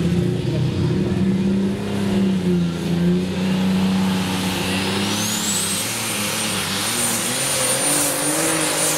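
Pulling tractor's engine running hard under full load as it drags the weight-transfer sled down the clay track, its pitch wavering up and down. A high whine rises about five seconds in and then holds.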